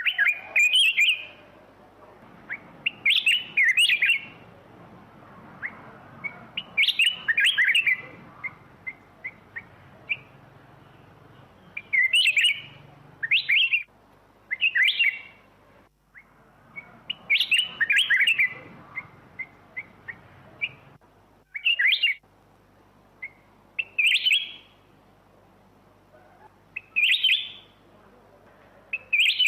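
Black-crested bulbul singing: about ten short phrases of quick, high notes, repeated every few seconds, with soft single notes in between.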